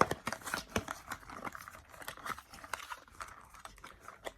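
Plastic packaging crinkling and clicking as small accessories are unwrapped by hand: a quick, uneven run of rustles and small clicks.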